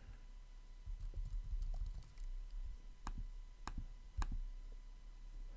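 Faint typing and clicking on a computer keyboard, with a few sharper key clicks about three to four seconds in, over a low steady hum.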